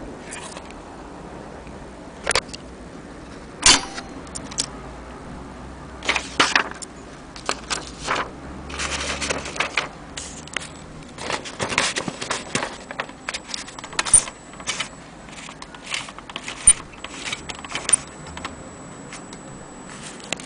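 Irregular metal clicks, clacks and rattles from an antique mechanism being handled, with a denser rattling stretch about nine seconds in. A faint, steady high whine runs through the second half.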